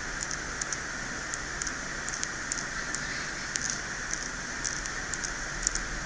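Fine scraping tool scratching at an iPhone 6s Plus logic board, giving irregular faint crackly ticks over a steady hiss. The scraping clears board material that was damaged where a wrongly fitted long screw shorted the LCM-VCC line.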